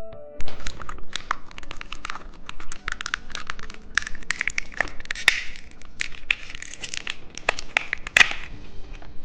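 Plastic candy wrapper being torn and crinkled by hand: a dense run of sharp crackles and rustles.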